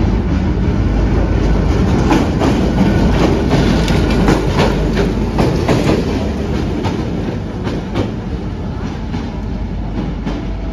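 Diesel locomotive passing close by: the low engine rumble with the wheels clicking irregularly over rail joints. It is loudest in the first half and eases off as the locomotive moves away.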